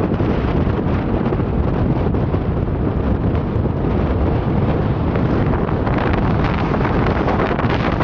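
Strong wind buffeting the microphone: a loud, unbroken rumble of gusts, heaviest in the low end.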